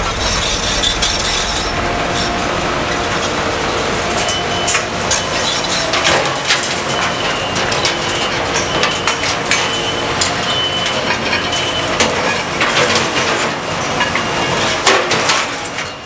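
Demolition machinery breaking and crushing building rubble: a dense, continuous crunching and clattering of debris with many irregular knocks.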